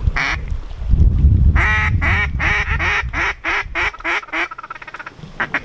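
Mallard quacking: one quack, then a descending series of about nine quacks that fade as they go, a hail call. A fast run of short quacks starts right at the end. Wind rumbles on the microphone underneath.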